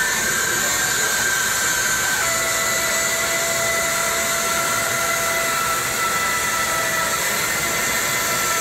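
Bandsaw resawing a thick board stood on edge: a steady whir of the blade in the cut, with a high thin whine over it.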